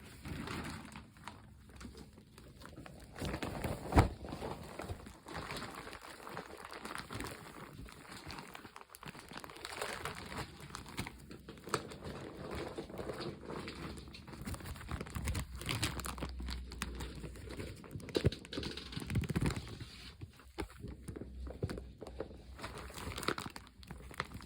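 Woven plastic of an IKEA blue shopping bag rustling and crinkling irregularly as a cat moves about in it, with a sharp knock about four seconds in.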